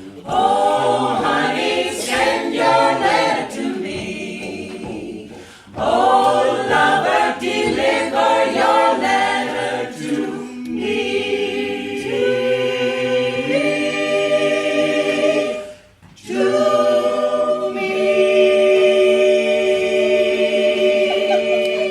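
Small vocal group singing a cappella in harmony: two sung phrases, then long held chords, the last one sustained to close the song.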